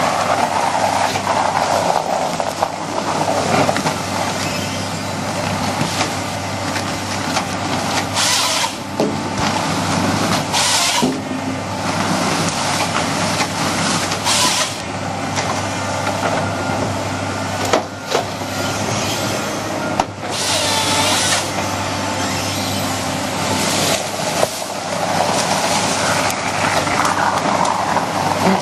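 Engine of heavy tree-cutting machinery running steadily, with several short bursts of hissing.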